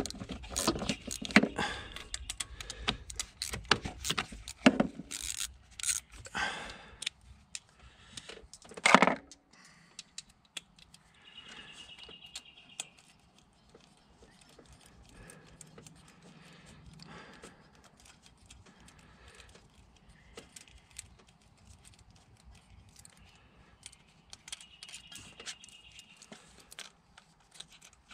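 Small socket ratchet clicking and metal tools clinking as the hold-down bolt of an ignition coil is loosened, with a loud clack about nine seconds in. After that there are only faint handling noises as the bolt and coil are worked by hand.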